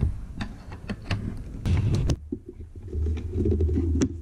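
Handling noise from an airsoft rifle being worked on a wooden tabletop: a few sharp clicks and knocks, a short scrape, then a low rumbling rub from about halfway as the gun is gripped and shifted against the table.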